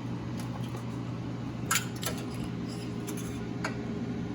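TIG welding machine humming steadily, with two brief metallic clicks about two and four seconds in.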